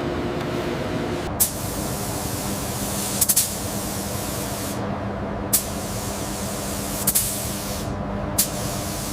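Compressed air hissing steadily, with short sharp spurts about five times, over a low steady machine hum.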